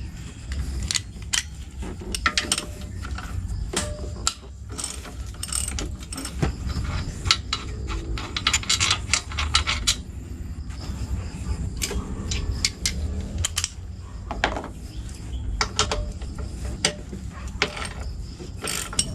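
Ratchet socket wrench clicking in irregular runs as 12 mm and 14 mm bolts are undone on a scooter's stock exhaust, with sharp metal clicks and clinks of tool and parts.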